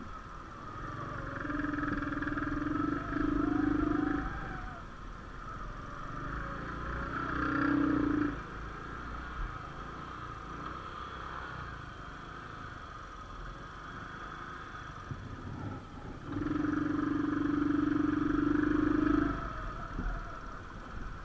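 Honda CD80 motorcycle's small single-cylinder engine running as the bike rides a rough dirt track, its note swelling louder three times under throttle: near the start, around a third of the way in, and near the end.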